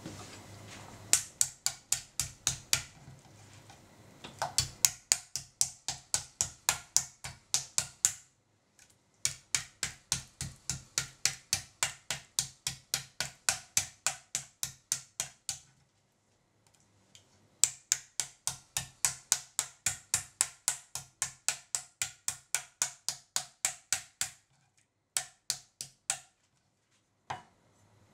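A kitchen knife beating a block of konnyaku on a wooden cutting board: rapid, even strikes, about five a second, in four long runs with short pauses between them, then a few single strikes near the end. The beating breaks the konnyaku's fibres so that it sheds water and takes up the seasoning.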